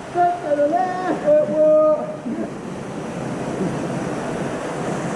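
Steady rush of falling water splashing down. For the first two seconds a voice calls out over it in drawn-out, wordless cries.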